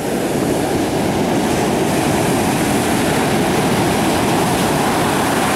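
Steady low roar of Pacific Ocean surf breaking on the shore, with no let-up.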